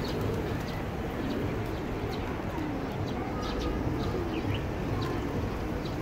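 A flock of feral pigeons cooing continuously, many low overlapping coos, with short high chirps scattered over them.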